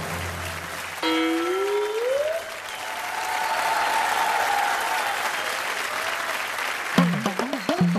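Studio audience applauding. A rising musical sting sounds about a second in, and a rhythmic music track with a bouncing beat starts near the end.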